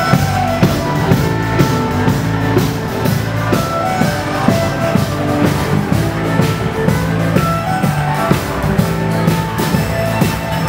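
Live bush band playing a dance tune on drum kit, acoustic guitar and other instruments, with a steady beat of about two a second.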